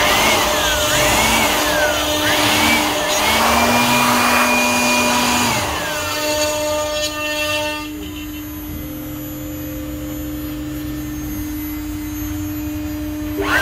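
A power tool's motor being triggered in several short bursts, its whine rising quickly and falling off each time, then held at speed for about two seconds before winding down. A quieter steady hum remains for the rest of the time.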